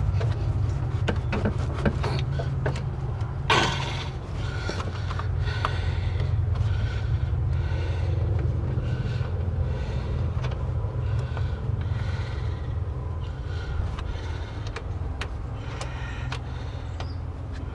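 A flexible corrugated lower radiator hose being pushed and twisted onto the radiator neck by hand: scattered clicks and knocks, a louder scrape about three and a half seconds in, then a run of rhythmic rubbing, all over a steady low rumble.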